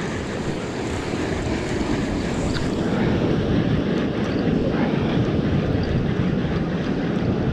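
Wind buffeting the microphone over the rush of surf breaking on a rocky shoreline: a steady, deep rush that grows a little louder about three seconds in.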